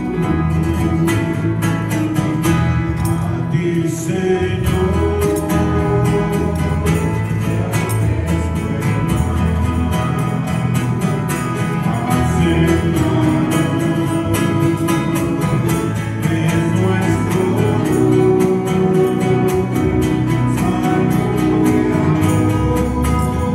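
A hymn sung to strummed guitar, played steadily without a break.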